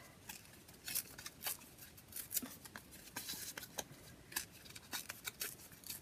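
Paper collage cutouts being handled and shifted about on a journal page: faint, scattered rustles and light taps of paper.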